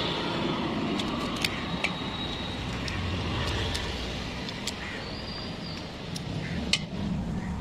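Steady road traffic noise with a handful of sharp clicks scattered through it, the loudest near the end.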